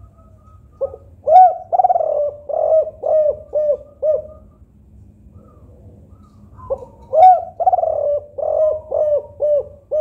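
Spotted dove (tekukur) cooing: two song phrases about six seconds apart, each a run of about seven low coos with a longer, louder note near the start. This is the song type Indonesian keepers call 'kuk 4'.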